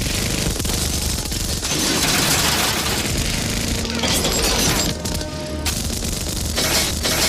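Loud, dense music filling the whole range, with several abrupt changes between sections.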